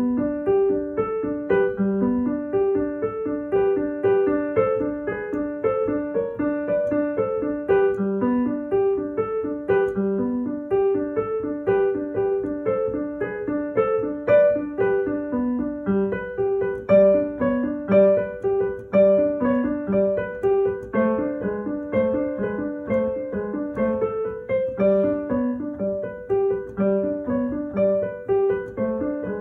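A digital piano played solo in a quick run of short, detached staccato notes.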